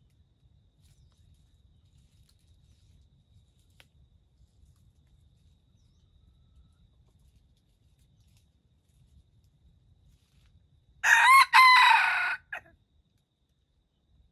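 Red junglefowl rooster crowing once about eleven seconds in: a short crow of about a second and a half with a brief break near its start.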